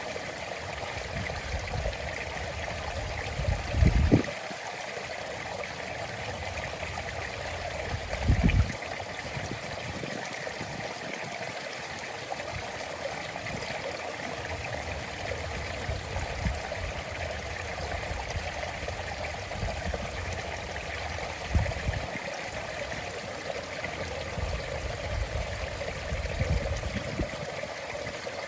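A small stream running steadily over stones into the sea, a continuous even rushing and trickling. A few brief low thumps break through, the loudest about four and eight seconds in.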